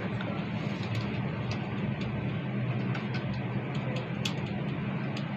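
Steady cabin noise inside a Volvo BZL battery-electric bus: a constant low hum with road noise, and a few light clicks and rattles scattered through it.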